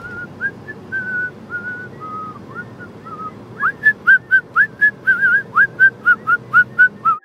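A man whistling a tune over the steady road noise of a moving car's cabin: a few slower, held notes, then from about halfway a louder run of quick, short, sharply started notes.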